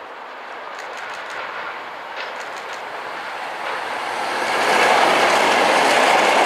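Class 73 electro-diesel locomotive 73969 passing at speed, towing two Class 47 diesel locomotives. The rumble of engine and wheels on the rails grows as it nears and is loudest from about four and a half seconds in, as the locomotives go by.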